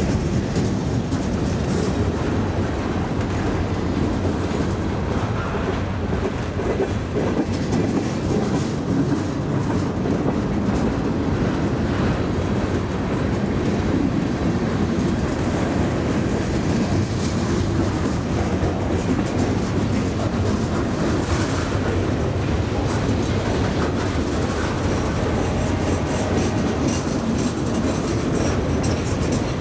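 A mixed freight train's cars rolling past close by: a steady rumble of steel wheels on the rails, with scattered clicks from the wheels and couplings.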